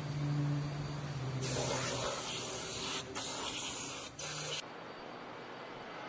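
A pressurised jet hisses inside a machine that carries forged steel crawler-track links. It starts about a second and a half in, breaks off twice very briefly, and cuts off sharply after about three seconds. A low steady hum sounds before the hiss begins.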